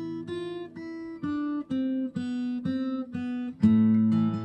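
Acoustic guitar playing a slow melody of single plucked notes, about two a second, with a louder chord struck about three and a half seconds in.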